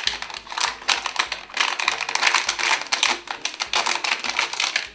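Rapid crinkling and crackling of a plastic anti-static bag being handled and pulled open by hand, with small clicks of the part inside.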